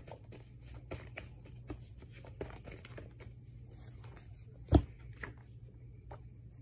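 Hand-shuffling of paper index cards: quick flicking, sliding and rustling of the cards, with one louder thump about five seconds in.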